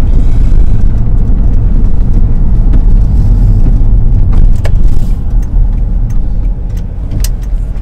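VW T3 Syncro van driving, heard from inside the cab: a steady loud rumble from the rear-mounted petrol engine and the road, with a couple of short clicks or rattles in the second half.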